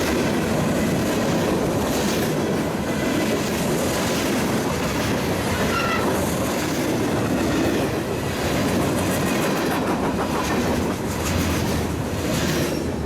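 CSX freight train's cars rolling past at speed: a steady rumble with steel wheels clacking over the rail joints.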